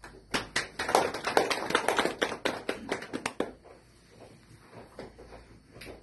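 A few people clapping their hands in quick, irregular claps for about three seconds, then trailing off to a few scattered claps.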